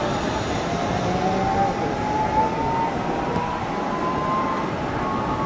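Zip-line trolley pulleys whirring along the steel cable, a thin whine that slowly rises in pitch, over a steady rushing noise.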